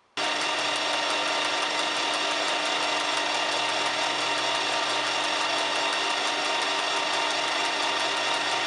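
Metal-turning engine lathe running with a large faceplate fixture spinning: a steady, unchanging whirr of motor and gearing that starts abruptly just after the start.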